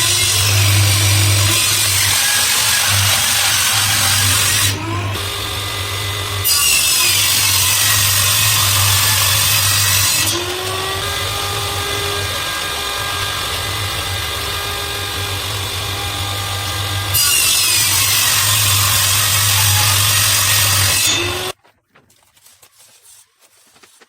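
Electric woodworking power tool running continuously. It gets loud three times as it bites into wood and runs more quietly between cuts, with its pitch sliding as the load comes on and off, then stops shortly before the end.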